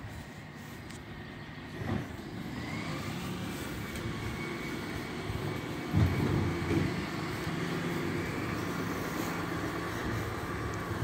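Bin lorry's engine running as the truck drives slowly along the road, growing gradually louder as it comes closer, with a brief louder low surge about six seconds in.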